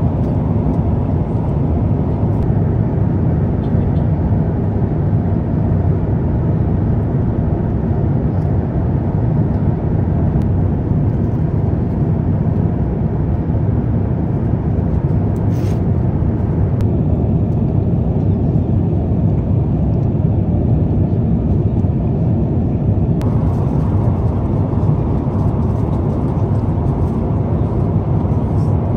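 Steady cabin noise of an Airbus A350-900 in cruise: a low, even rush of airflow and engines heard from inside the cabin, with a single brief click about sixteen seconds in.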